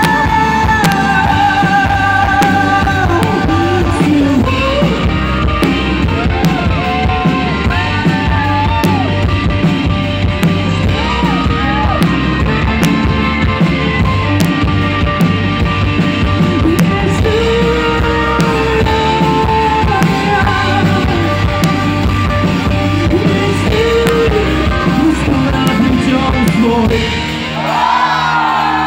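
Live rock band playing an instrumental passage with drum kit, bass and a wavering lead melody. Near the end the drums and bass drop out and the music thins.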